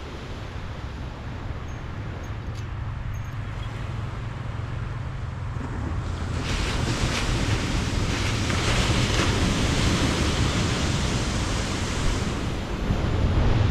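Ocean surf on the shore with wind rumbling on the microphone; about six seconds in a wave washes up, hissing loudest for a few seconds before easing off.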